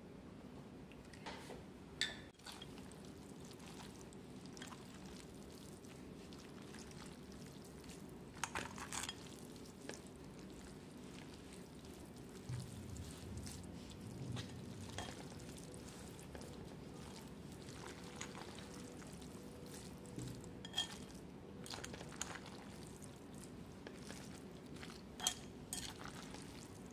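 Kitchen utensils and dishes clinking and knocking now and then, about five separate times, over a low steady hum.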